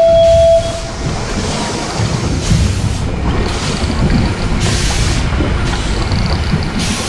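Wind rumbling on the microphone, with sea water sloshing and splashing against the side of a boat in irregular surges. A steady high tone cuts off about half a second in.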